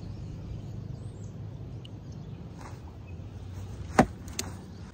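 Steady low rumble on the microphone, broken by a sharp knock about four seconds in and a lighter one just after, as a small caught fish is handled close to the phone.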